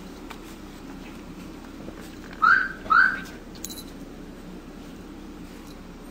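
A domestic cat giving two short, high-pitched cries about half a second apart, each rising then falling.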